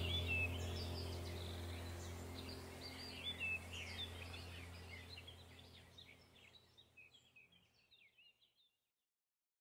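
Background soundtrack of a low steady hum with bird chirps over it, fading out to silence about six seconds in.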